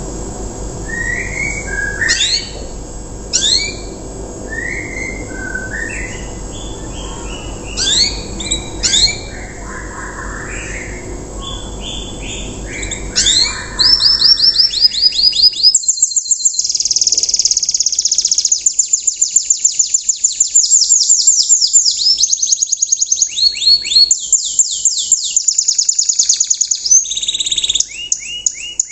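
A canary singing. In the first half, scattered short whistled notes sound over a steady background hum. From about halfway it breaks into loud, fast, rattling trills: the coarse rapid-trill phrase that keepers call 'riwikan'.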